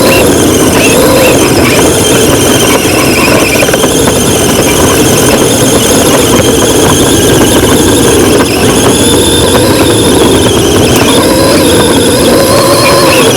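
A loud, continuous mechanical whine or squeal whose pitch slowly wavers up and down.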